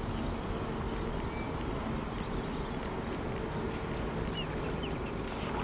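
Lakeshore ambience: a steady low rumble with a faint steady hum, and a few faint, short, high bird peeps scattered through.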